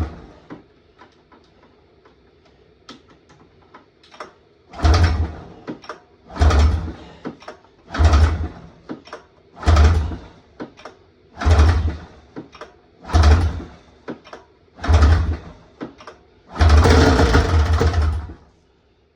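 Two-stroke snowmobile engine being cranked by its recoil pull-start rope: eight hard pulls about every second and a half, each turning the engine over briefly without it catching, the last pull running a little longer.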